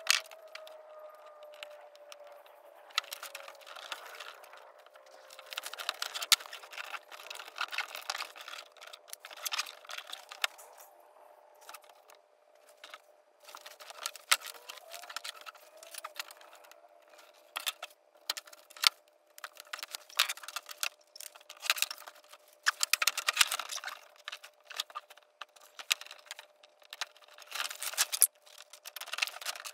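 Orange fabric covering being handled and peeled off a van door trim board: irregular rustling and crinkling, with light clicks and knocks of tools and the board on a wooden bench. A faint steady tone runs underneath.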